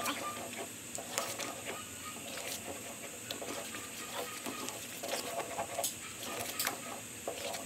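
Wooden spoon stirring and scraping thick pumpkin and sweet potato mash in a metal pan, with scattered knocks and clicks of the spoon against the pan.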